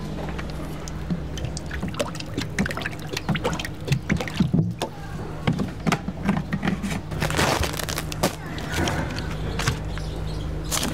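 Cooking oil glugging out of a plastic jerrycan into a flat pan, with clicks and knocks from handling, over a steady low hum.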